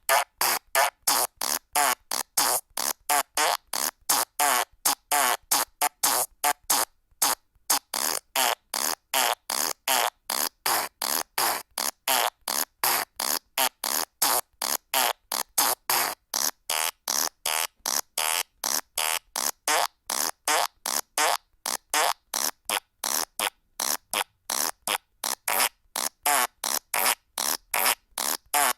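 Fart sound effects from a joke soundboard phone app, played one after another in quick succession: about three short farts a second, each cut off cleanly with a brief silent gap before the next.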